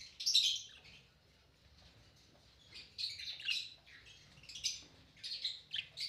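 Budgerigars chirping in short, high, quick clusters: one burst at the start, then more chatter from about halfway through.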